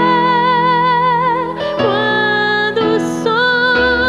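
A woman sings a slow worship song into a microphone over sustained instrumental chords. She holds a long note with vibrato, then starts a new phrase about two seconds in.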